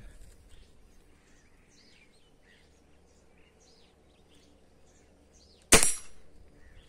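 A single shot from a Gamo CFX spring-piston air rifle near the end, one sharp report with a brief tail. Faint bird chirps come before it.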